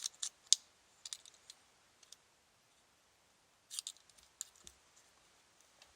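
Scattered sharp clicks from a car key fob being handled and its built-in key pulled out: a cluster at the start, a few more over the next two seconds, then another cluster a little under four seconds in.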